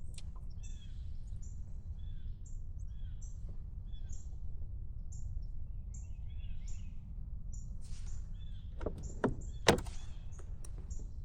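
Small birds chirping again and again, about twice a second, over a steady low rumble. Two or three sharp knocks come about nine seconds in.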